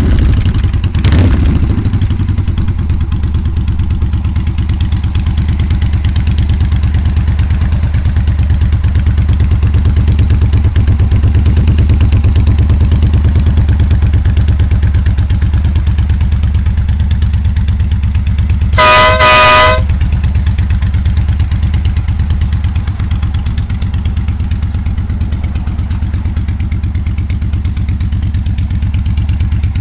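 Motorcycle engine running steadily through Cobra drag pipes, a loud, deep, even exhaust note. A little over halfway, an air horn gives two short blasts.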